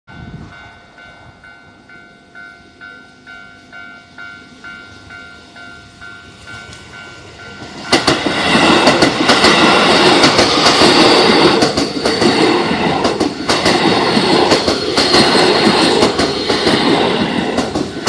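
Japanese level-crossing warning bell ringing about twice a second. About eight seconds in, a Keio 5000-series electric train arrives and passes slowly, loud and close, its wheels clacking over the rail joints and drowning out the bell.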